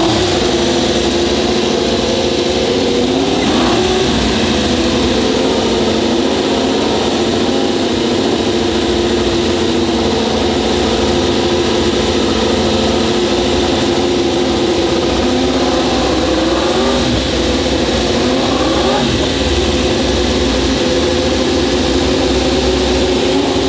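Suzuki GSX-RR MotoGP bike's inline-four engine running loudly at a high idle on its stand. The throttle is blipped and the revs rise a few seconds in, then twice more later on.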